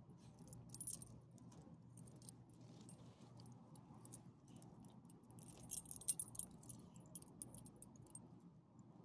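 Metal tags and leash clip on a dog's collar jingling in short clusters of clinks, loudest about six seconds in.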